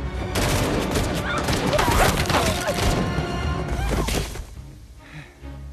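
A heavy volley of rapid gunfire, many shots close together for about four seconds, stopping abruptly, over a film score.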